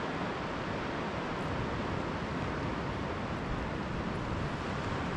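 Steady rushing noise of surf breaking on a sandy beach, mixed with wind.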